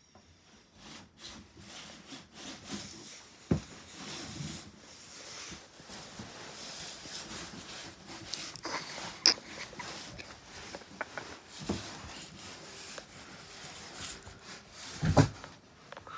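Cat moving about on a cardboard box: scuffing, scratching and rubbing on the cardboard close to the microphone, with several knocks and thumps, the loudest near the end.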